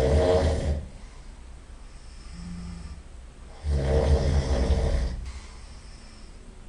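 A person snoring heavily: two loud, rattling snores about four seconds apart, one right at the start and one about four seconds in, each lasting around a second, with softer breathing between them.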